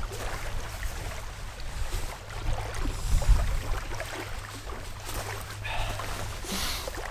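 Wind buffeting the microphone in a steady low rumble, over small waves lapping on a gravel lakeshore. A brief rustle of a padded jacket being handled comes near the end.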